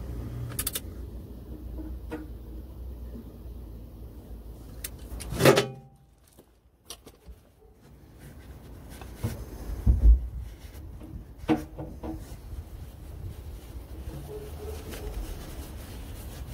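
Knocks and clicks of hand work on a Mercedes Sprinter 313 manual gearbox, as a plug is taken out of the casing and the hole wiped with a paper towel. The loudest knock comes about five seconds in, and two more come about ten and eleven and a half seconds in.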